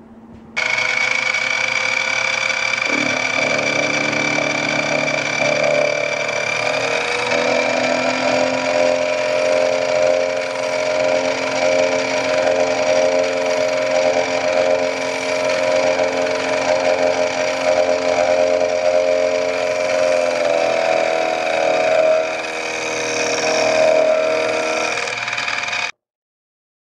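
Milling machine running steadily with a ball nose end mill cutting the metal sight block: a steady motor and spindle whine with several tones, shifting in pitch a few times and cutting off abruptly near the end.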